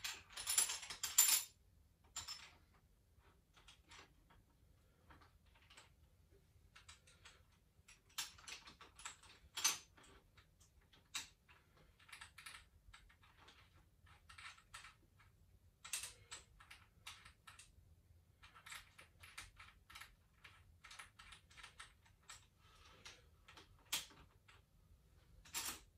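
Irregular light clicks and small knocks of hand work on a mountain bike, the sound of the saddle and seatpost being fitted; a loud cluster of clicks in the first second or so, then scattered clicking in bursts.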